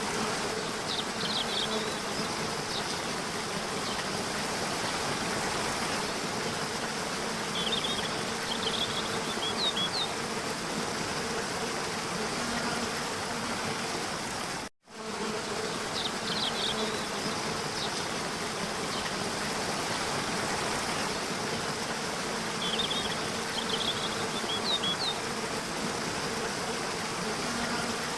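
Nature ambience of steady rushing water with a low insect buzz, broken by a few clusters of short high chirps. The sound drops out for a split second just before the middle, and then the same loop of about fifteen seconds starts again.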